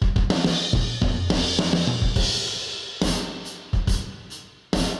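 Soloed virtual drum kit playing back: kick, snare and cymbals with a large room reverb and a heavily pre-compressed sound. A dense run of hits fills the first three seconds, then sparser single hits that each ring out.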